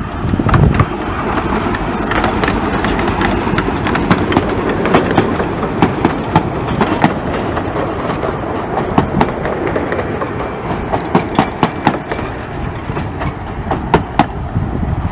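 Open coaches of a 15-inch gauge miniature railway rolling past, their wheels clicking and clacking over the rail joints. The clicks come irregularly and grow sharper in the second half.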